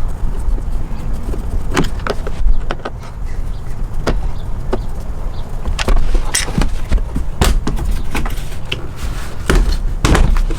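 Irregular clicks and knocks of hard plastic trim and its fasteners being worked loose from the rear tailgate sill of a 100 Series Land Cruiser's cargo area, over a steady low rumble.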